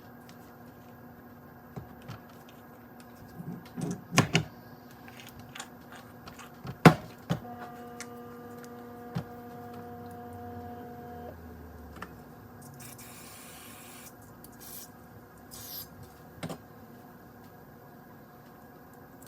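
Small metal clicks and clinks from steel steering-box parts and loose ball bearings being handled during reassembly of a recirculating-ball steering box. About seven seconds in comes one sharp metallic clink that rings on for about four seconds.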